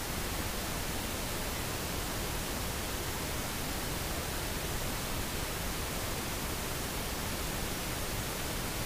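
Steady, even hiss of the recording's background noise, with nothing else standing out.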